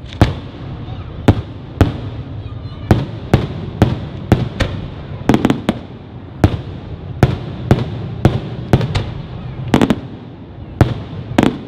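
Fireworks display: shells bursting in an irregular run of sharp bangs, one or two a second and sometimes in quick clusters, over a continuous low rumble.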